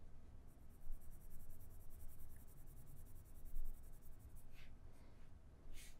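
Faint scratching of pen strokes on a drawing surface while a sketch is drawn, over a low steady room hum. Two short, sharper strokes come near the end.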